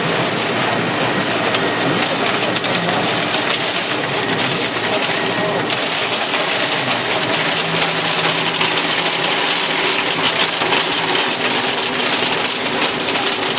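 Heavy rain hissing steadily, with a tractor engine running underneath.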